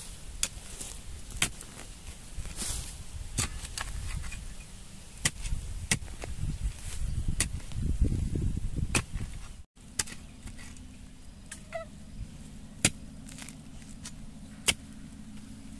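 Digging hoe chopping into loose red soil around a bamboo shoot: a run of sharp, irregular strikes with soil being loosened and scraped. The sound cuts out briefly about two-thirds of the way through, and the strikes carry on afterwards.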